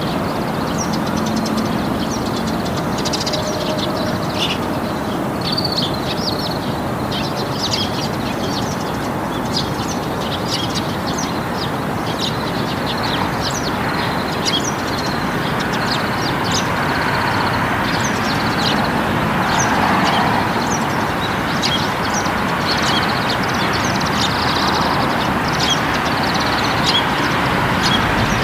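A steady rumbling, rushing noise that grows a little louder after about fifteen seconds, with frequent short, high chirps over it, like birdsong.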